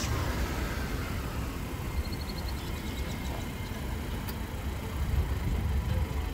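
A car engine idling with a steady low rumble, with a faint quick run of high ticks about two seconds in.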